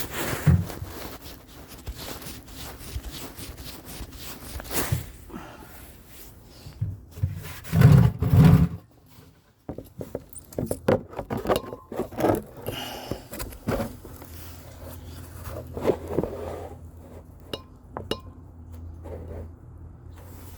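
Handling noise from the filming phone being wiped and adjusted: scrapes, small clicks and clinks, with a heavy bump about eight seconds in and a second of near silence just after.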